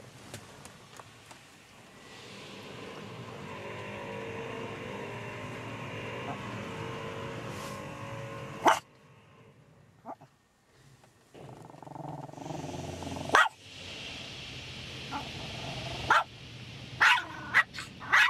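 Shih Tzu barking sharply inside a car in an automatic car wash: a single bark about halfway through, another a few seconds later, then several quick barks near the end. Behind the barks is the steady rushing noise of the car wash, which stops briefly in the middle.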